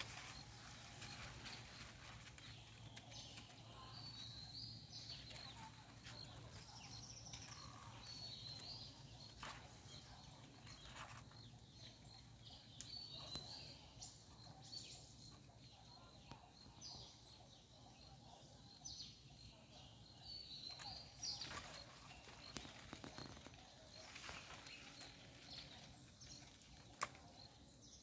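Near silence: faint outdoor ambience with scattered brief high chirps from small animals and a few soft clicks over a low steady hum.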